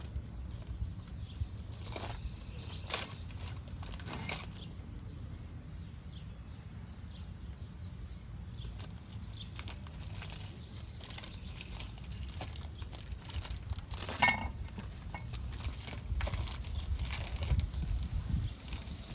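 Brake pads and brake parts being handled: scattered light clicks and rustling, with one sharper click about fourteen seconds in, over a low steady hum.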